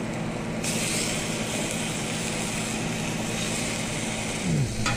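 Trout fillets sizzling as they go onto a hot gas griddle. A hiss picks up about half a second in, over a steady low mechanical hum.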